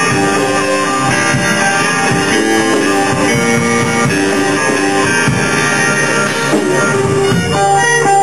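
Rock-style band music with guitar over a drum kit, moving near the end into steadier, held tones.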